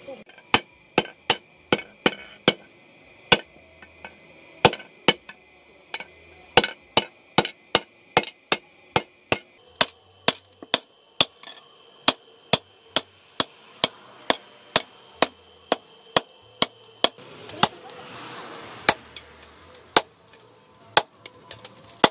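Hand hammer striking red-hot pipe steel on a steel-post anvil: a steady run of sharp, ringing metal blows, about two a second, as the steel is forged into a digger hoe.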